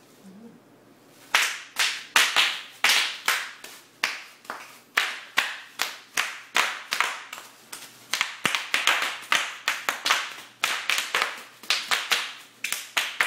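Bubble wrap popping: a long, irregular string of sharp pops, about three or four a second, starting about a second in.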